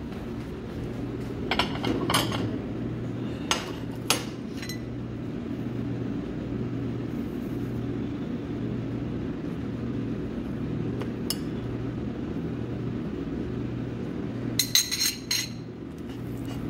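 China plates and metal serving tongs clinking: a few sharp clinks in the first seconds and a quick cluster of them near the end, over a steady low hum.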